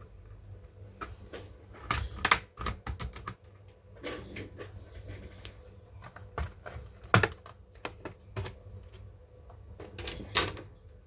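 Irregular plastic clicks and taps from hands and tools working on a laptop's case and parts, with a few louder snaps about 2, 7 and 10 seconds in.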